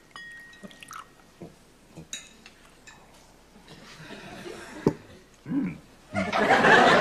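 House wine being poured into a glass: faint liquid trickles and small clicks of glass. About six seconds in, a studio audience starts laughing loudly.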